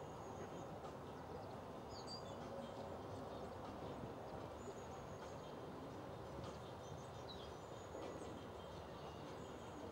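Faint outdoor ambience: a steady low background hum with small birds chirping now and then.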